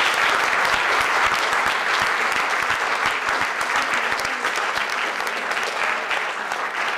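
Audience applauding: dense hand-clapping that slowly thins out toward the end.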